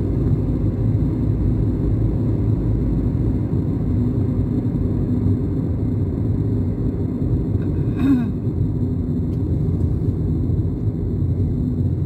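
Steady low rumble of a car's road and engine noise, heard from inside the cabin while driving, with a brief short sound about eight seconds in.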